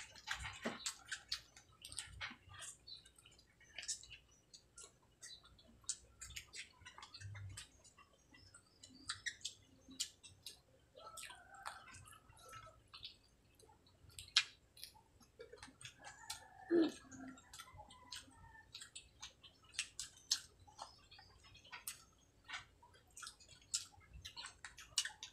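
Close-up mouth sounds of eating fried tilapia in sweet-and-sour sauce with rice by hand: irregular wet chewing clicks and lip smacks. A couple of brief murmured vocal sounds, the clearer one about two-thirds of the way through.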